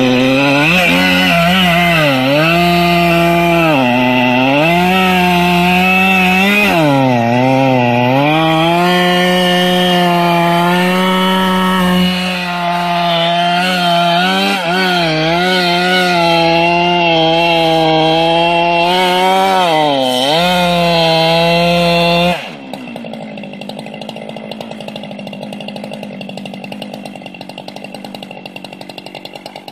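Two-stroke chainsaw running at full throttle while cutting through the base of a large tree, its engine speed sagging and recovering several times as the chain loads in the cut. About three-quarters of the way through, the throttle is released and it drops suddenly to a steady idle.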